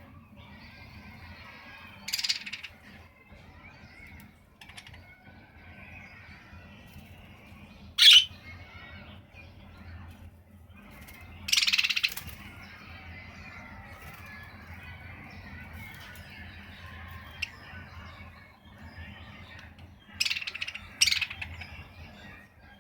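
Pet budgerigars warbling and chattering steadily, broken by a few loud, sharp calls scattered through.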